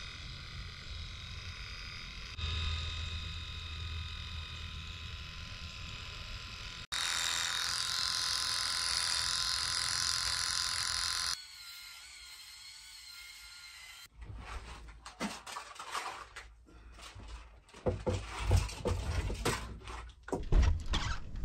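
Electric shaver running with a steady buzzing whine for about eleven seconds, growing louder twice as it is held closer, then stopping. From about fourteen seconds in come irregular knocks, clunks and footsteps.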